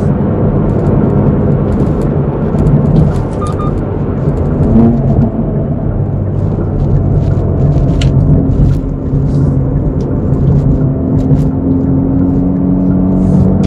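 Hyundai Veloster N's turbocharged four-cylinder engine and exhaust heard from inside the cabin while driving, a steady drone over road noise. Its pitch shifts about five seconds in, with scattered faint sharp ticks.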